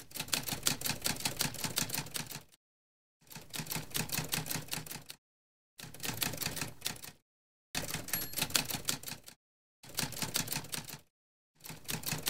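Typewriter sound effect: keys clacking in quick runs, six bursts of about one and a half to two and a half seconds each, with short pauses between them, matching text being typed out on screen.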